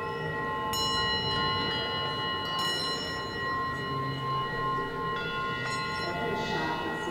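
Metal singing bowls struck with a mallet several times, their long ringing tones overlapping and sustaining.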